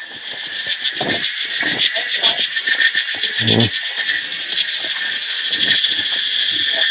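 A loud chorus of insects buzzing in a steady, fast-pulsing drone, over irregular low thuds and rustles.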